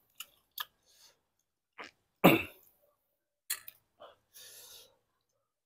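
Eating sounds: wet chewing and lip smacks as scattered short clicks, a loud sharp breath about two seconds in, then a spoon clinking on the steel tray and scraping through the broth near the end.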